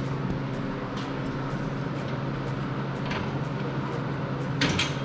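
Steady machine hum with faint ticking about three times a second, and a short rattle near the end.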